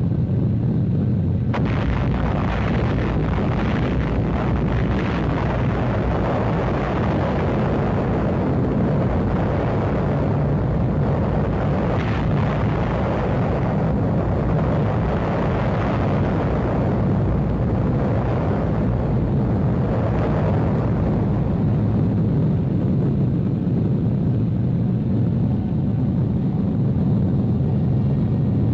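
Loud, steady low rumble with a rushing hiss above it, unbroken throughout.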